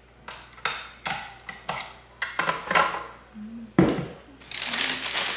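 Metal kitchenware clinking and knocking, some strikes ringing briefly, as a stand mixer's wire whisk and mixing bowl are handled. There is a heavier knock about four seconds in and a scraping rustle near the end.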